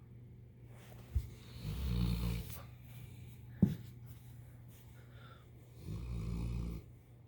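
A sleeper snoring: two long, low snores about four seconds apart. Two short, sharp sounds, one about a second in and one midway, and a steady low hum run under it.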